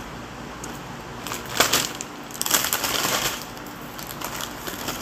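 Crinkling of a plastic chip bag being handled, in two rustling spells about a second and a half in and again from about two and a half seconds in, with more rustling near the end.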